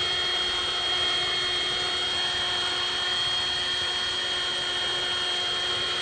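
Handheld vacuum running steadily with a high whine over its hum, sucking nurse bees off the comb into a collection jar for a varroa mite sample.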